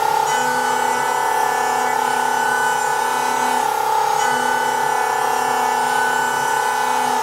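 CNC router spindle milling a side plate from 18 mm board, a steady high-pitched whine with the cutter's noise underneath.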